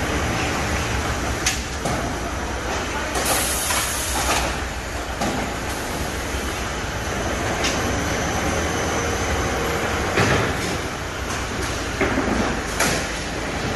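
Automatic concrete-brick cuber running, with a steady mechanical din and occasional metallic clanks as its gantry stacks blocks. A high hiss runs for about a second about three seconds in.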